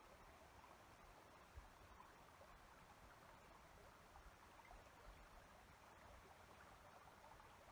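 Near silence: a faint, steady hiss of outdoor ambience.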